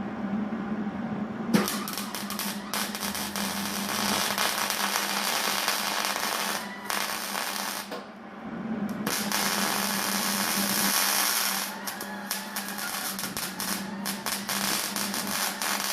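Electric welding arc crackling in runs of a few seconds with short breaks, turning into short, choppy bursts near the end, over a steady low hum.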